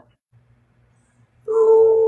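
Near silence, then about one and a half seconds in a person's voice holding a single steady note, a brief hum.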